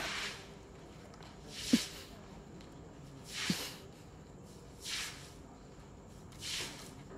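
Broom swept in slow strokes across wet pavement: four separate swishes about a second and a half apart, the first two starting with a short low knock.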